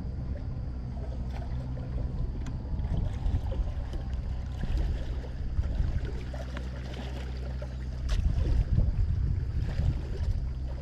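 Steady low motor hum with wind and water noise and a few faint clicks, growing louder in the last few seconds.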